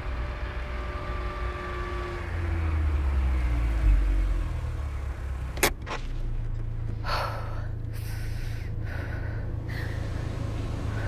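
A vehicle running, with a steady low rumble and a sharp click about five and a half seconds in.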